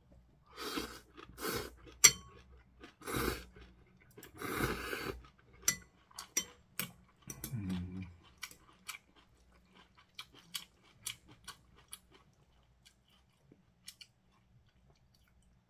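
A man slurping ramen noodles topped with kimchi in four long pulls during the first five seconds, then chewing with many sharp, crunchy clicks as he works through the kimchi and vegetables. The clicks thin out near the end.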